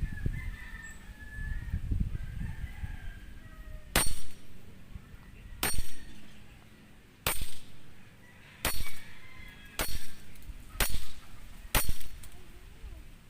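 WE Hi-Capa Dragon 7 green-gas blowback airsoft pistol firing seven single shots, one sharp crack about every second or second and a half, at a glass bottle that does not break.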